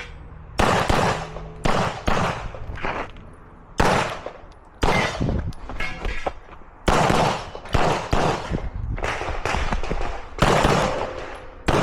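A dozen or so handgun shots fired in a course of fire, in singles and quick pairs with short gaps between, each sharp crack followed by a short echo.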